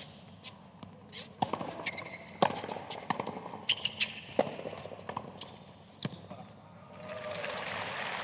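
Tennis rally on a hard court: racket strikes and ball bounces about once a second, with short sneaker squeaks on the court surface. Near the end the point ends and the crowd applauds.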